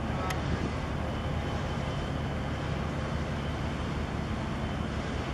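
Steady low engine drone of a container ship under way, mixed with wind noise on the microphone. Two faint clicks sound right at the start.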